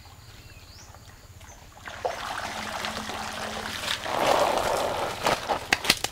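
Water splashing and streaming off whole ducks as they are lifted out of a large wok of steaming scalding water, the step that loosens the feathers for plucking. It starts about two seconds in, is loudest around the middle, and ends with a few sharp wet slaps.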